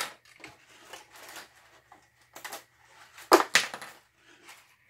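Light clicks, taps and rustling from small LED lamps and their thin wire leads being handled and set between the wooden rafters of a model building's roof. The sharpest clicks come right at the start and in a quick pair about three and a half seconds in.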